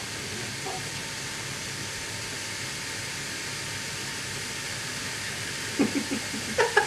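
Beef burger patties sizzling steadily on a George Foreman electric grill, with a few short louder sounds near the end.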